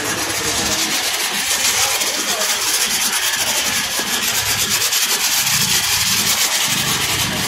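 High-pressure washer jet spraying water onto a car's foam-covered body and wheel: a steady, loud hiss with a fast, even flutter.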